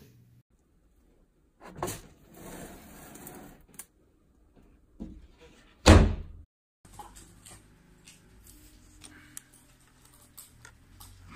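A door swinging shut with one loud thunk about six seconds in. Before it comes a brief scraping hiss, and after it faint clicks and taps.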